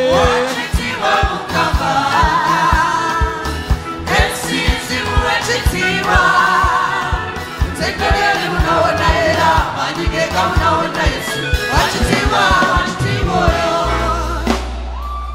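Gospel worship music: many voices singing together like a choir over a band with a regular drum beat. A low bass note is held near the end.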